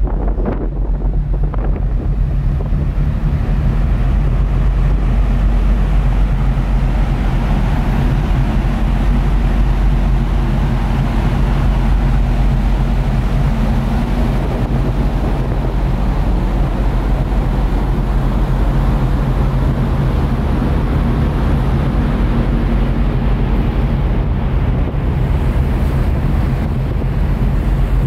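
Steady low drone of a passenger ferry's engines under way, with wind buffeting the microphone and a rush of sea noise. There are a few stronger gusts in the first couple of seconds.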